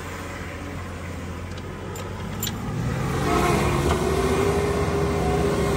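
Nissan Patrol 4x4's engine running low, then revving up about three seconds in and holding higher revs as it pulls under load into a muddy ditch.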